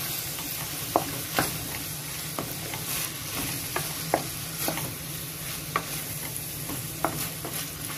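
Wooden spatula stirring chicken, shrimp and carrots in a sizzling frying pan: a steady sizzle with irregular knocks and scrapes of the spatula against the pan about every second.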